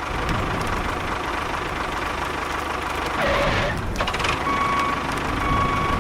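Small motor of a homemade miniature bulldozer running steadily with a rough, noisy hum. A louder burst comes about three seconds in, and near the end intermittent beeping tones sound over it.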